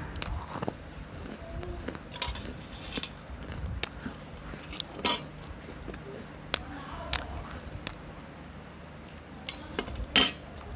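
Close-up eating sounds: bites and chewing, with scattered sharp clicks of cutlery, the loudest a little before the end.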